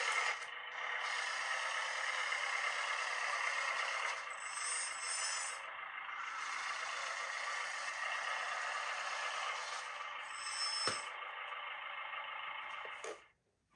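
Radio-controlled model truck or construction machine running: a steady mechanical whirr with brief high whines twice, cutting off about a second before the end.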